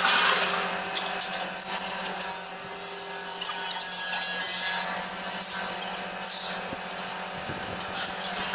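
Light metallic clicks and scraping of a wrench working bolts on a steel thresher frame, over a steady low hum.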